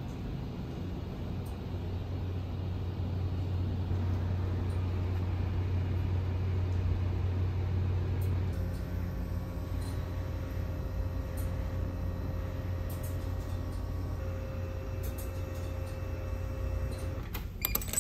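Steady low machinery hum and drone aboard a ferry. About halfway the hum changes and a few faint steady tones join it. A few sharp clicks come near the end.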